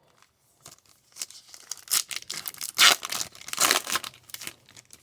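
A trading card pack wrapper being torn open and crinkled: a run of crackling tears, loudest in the middle.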